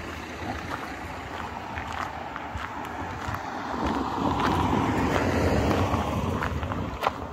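A van driving past on the road, its engine and tyre noise swelling about halfway through and then fading. Steady footsteps crunch on a gravel path throughout.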